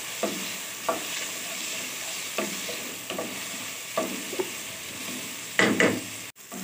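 Chopped onion, garlic and tomato sizzling steadily in oil in a metal pan, while a spatula stirs and scrapes the pan in short, irregular strokes, the loudest two near the end.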